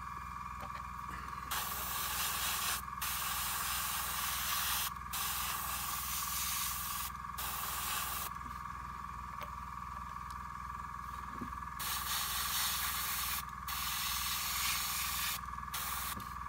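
Gravity-feed airbrush spraying paint in repeated hissing bursts of one to two seconds each, the trigger pressed and released about seven times, with a pause of a few seconds in the middle. The bursts lay a zenithal highlight coat onto the raised areas of a shield. A steady low hum runs underneath.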